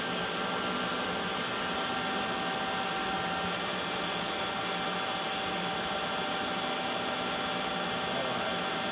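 Star SR32J Swiss-type CNC lathe running slowly with its coolant off: a steady machine hum with several constant whining tones from its motors.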